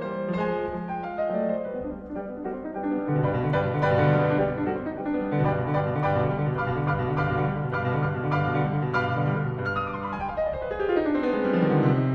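Piano music playing a busy stream of quick notes, with a fast descending run about ten seconds in.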